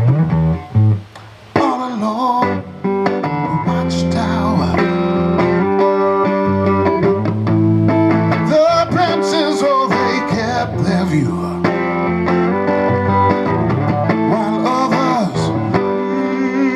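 Live blues band playing an instrumental break, with a lead guitar playing wavering, bent notes over the band. The music drops briefly about a second in, then carries on at full level.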